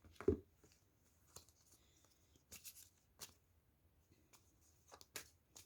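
Tarot cards being handled and laid down: a few faint, scattered taps and rustles of card on card.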